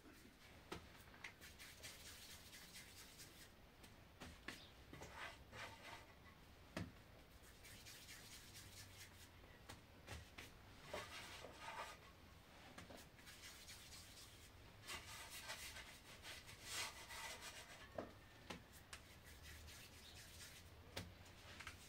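Faint rubbing and swishing with scattered light clicks and taps, close to near silence.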